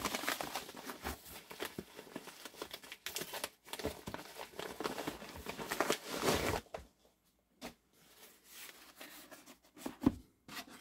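Rustling and crinkling of a plastic shipping mailer being handled and pulled open, with many small sharp crackles. It goes quieter and sparser after about seven seconds, when a small cardboard box is handled.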